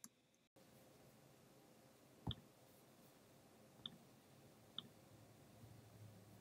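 Three short clicks of a computer pointer button over faint room tone; the first, a little over two seconds in, is the loudest.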